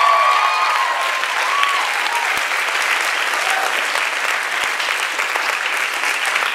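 Crowd applauding steadily, with a few voices calling out over the clapping in the first two seconds.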